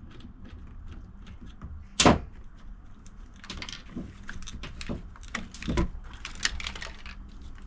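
Hand tools working the small nuts on a fuel pump assembly: one sharp knock about two seconds in, then a run of small clicks and rattles.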